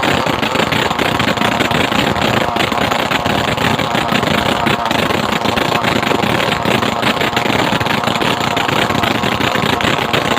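Two-piston petrol brush-cutter engine of the Robin NB415 type running loud and steady at a constant speed.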